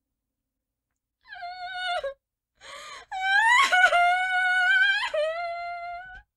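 A cartoon woman's exaggerated high-pitched wailing cry. After about a second of silence comes a short wail, then a sharp gasping inhale, then a long drawn-out wail that breaks into a second one near the end.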